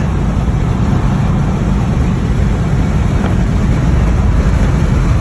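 Steady road and wind noise heard from inside a car's cabin at highway speed, a constant low rumble of tyres and engine.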